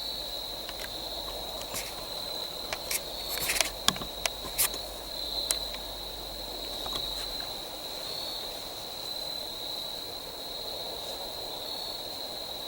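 Steady high-pitched chorus of crickets in the woods, with a few faint clicks and rustles about three to five seconds in.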